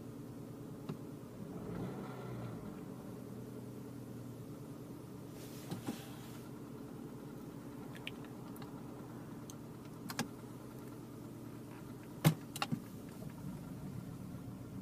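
Vauxhall Zafira A 1.8 four-cylinder petrol engine idling with the rough idle its owner is trying to diagnose, swelling briefly about two seconds in. A few sharp clicks cut through, the loudest about twelve seconds in.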